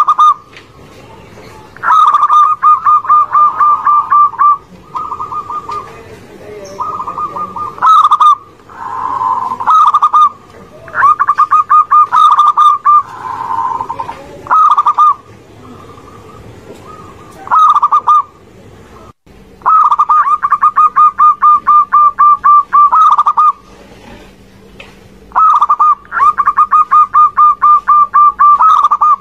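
Zebra doves (perkutut) cooing: phrases of quick, evenly spaced staccato coos at one pitch, about seven notes a second. Each phrase lasts one to four seconds, and the phrases repeat with short pauses and sometimes overlap. A faint steady hum comes in after a sudden cut about two-thirds of the way through.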